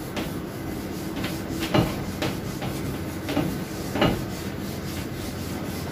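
Whiteboard duster wiping across a whiteboard to erase writing, repeated rubbing strokes with a few louder swipes about a second apart.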